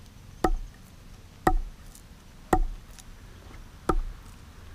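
Fallkniven F1 survival knife stabbed point-first into a dead log, four sharp thuds about a second apart.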